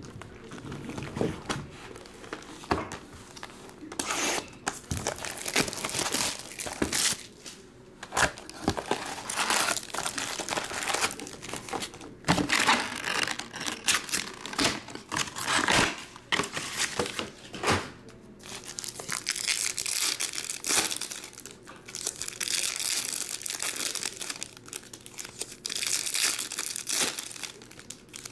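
Foil wrappers of Topps Chrome baseball card packs being torn open and crinkled by hand, one pack after another, in irregular crackling bursts that run together more evenly near the end.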